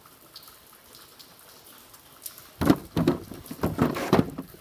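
Heavy steel tools knocking and rattling against each other in a toolbox drawer. A quick run of clatters starts about halfway in and lasts about two seconds.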